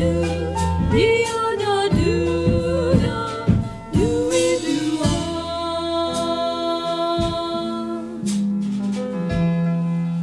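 Music from a song: a wordless passage in which a wavering melody line plays over sustained low accompaniment and a steady drum beat.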